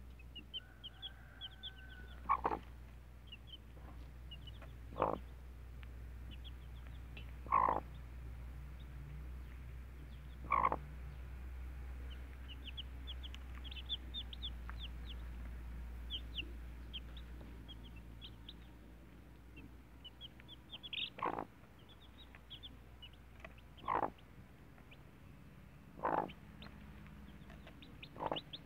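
A brood of chicks peeping with many quick, high, soft chirps, while a mother hen gives a louder short cluck every few seconds, eight times in all.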